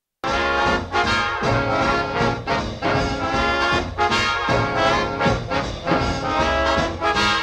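Brass-led instrumental music with a steady beat, starting abruptly a moment in after silence.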